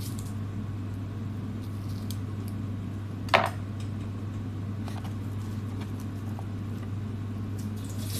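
Dry onion skin being peeled by hand, faint scattered crackles and clicks over a steady low hum, with one sharp knock about three and a half seconds in.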